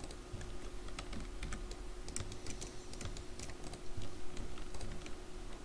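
Computer keyboard typing: irregular keystroke clicks, more of them about two to three seconds in, over a steady faint hum.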